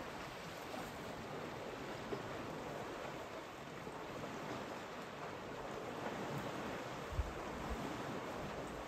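Steady water noise as a herd of elephants wades and drinks in a shallow muddy waterhole, with a couple of low bumps a little after seven seconds in.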